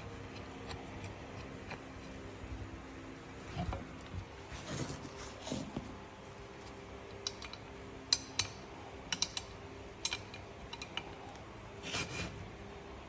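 Scattered light clicks and taps of small metal parts of a mini tabletop vise being handled, over a faint steady hum.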